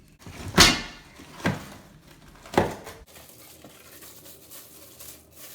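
Cardboard shipping box of a welding cart being forced open: three loud tearing, scraping strokes about a second apart, the first the loudest, then quieter rustling and handling. The box is hard to open.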